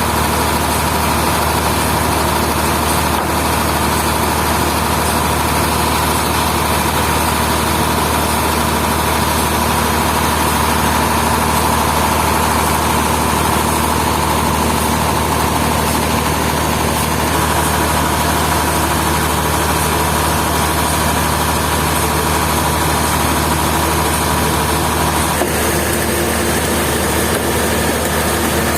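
Heavy sawmill machinery running steadily: a low engine hum under a constant high whine. The higher part of the sound thins out a little over halfway through and changes again near the end.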